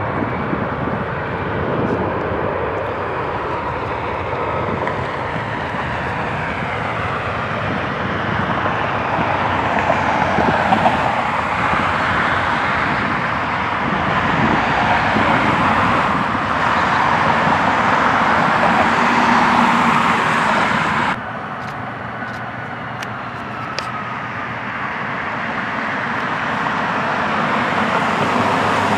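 Jet airliner engines heard from across the airfield: a steady roar that grows louder through the middle, then cuts off suddenly about two-thirds of the way through. After that a quieter jet engine sound from a taxiing regional jet builds again near the end.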